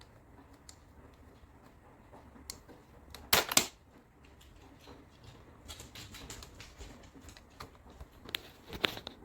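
Plastic clicks and snaps from a child-proof fridge combination lock being handled: two loud snaps in quick succession about three and a half seconds in, scattered lighter clicks after them, and two more sharp clicks near the end.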